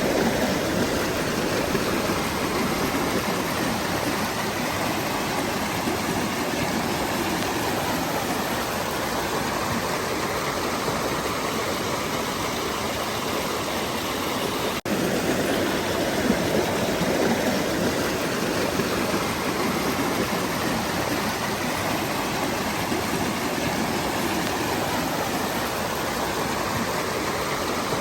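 Waterfall rushing: a steady, full noise of falling and flowing water, broken for an instant about halfway through.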